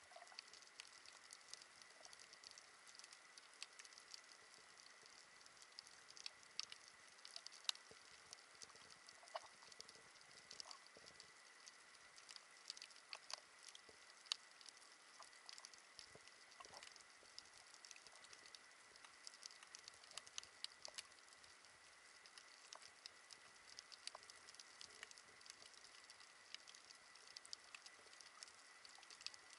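Underwater coral-reef crackle: faint, irregular clicks and ticks scattered throughout, over a soft hiss and a steady faint high tone.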